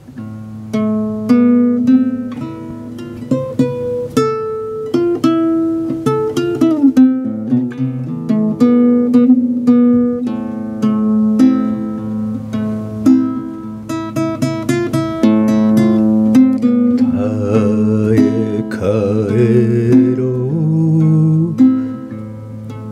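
Acoustic guitar played solo, picking the melody of an enka song's intro note by note. A man's singing voice comes in with wavering held notes about three quarters of the way through, over the guitar.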